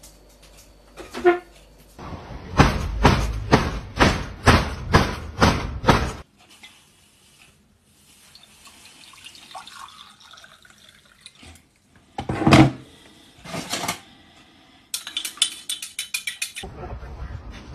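About seven loud thuds roughly half a second apart, then hot water poured from a kettle into a mug. A couple of knocks follow, then a teaspoon clinks fast against the mug as it stirs.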